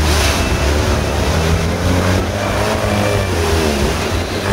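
Off-road 4x4's engine revving hard under load as it ploughs through deep mud and water, its pitch climbing, holding and then dropping again.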